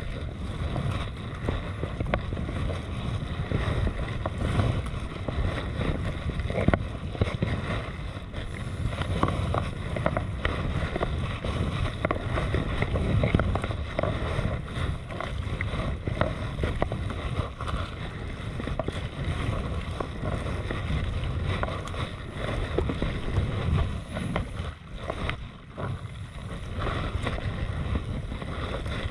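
Sea kayak being paddled through light chop: the paddle blades dip and splash irregularly and water slaps against the hull, under steady wind noise on the microphone.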